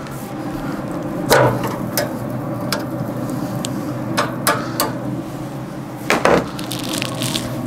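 Several sharp metallic clacks and knocks as steel tongs strike the cast-iron grates of a Pit Boss Navigator 850 pellet grill while a rubbed pastrami brisket is laid on them. The loudest knocks come about a second in and again near the end, over a steady low hum.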